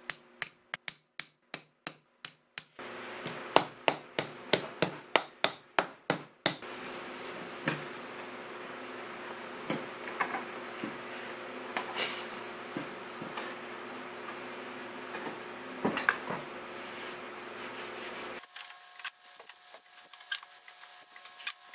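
A hammer knocks repeatedly on oak, about three blows a second for the first six seconds, tapping glued, dowel-jointed halves of an oak log slice together. After that come scattered clicks and knocks as bar clamps are set and tightened on the slab, over a steady background hum.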